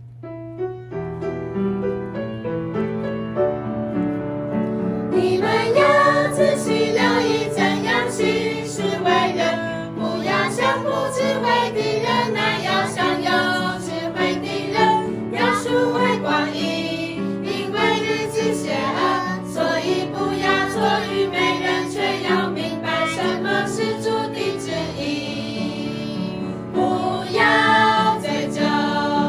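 Worship song sung by a choir with instrumental accompaniment, beginning with a short instrumental lead-in; the singing comes in about five seconds in.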